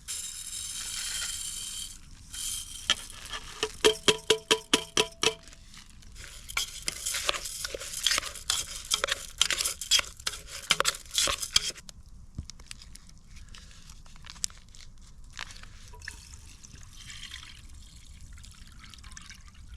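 Food frying in a pan over a campfire: a sizzling hiss, a quick run of stirring strokes with a metal utensil about four seconds in, then a busy spell of sizzling crackles that thins out after about twelve seconds.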